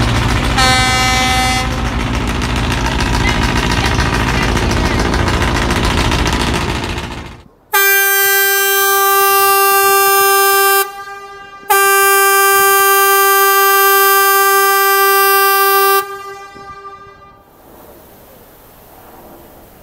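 A river passenger launch's horn sounding two long blasts, about three and four seconds long with a short break between. Before them a loud, steady rumble and hiss runs on the boat, with a brief higher horn toot about a second in. Near the end the horn gives way to quiet wind on the microphone.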